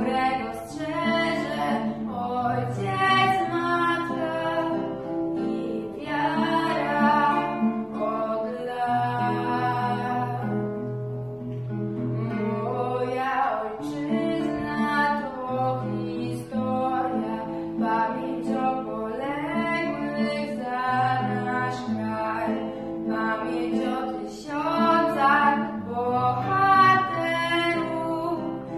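A teenage girl singing a song, accompanied by an acoustic guitar playing chords.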